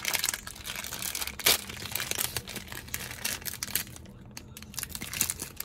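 Plastic wrapper of a frozen confection being torn open and crinkled in the hands: irregular crackling, loudest about one and a half seconds in.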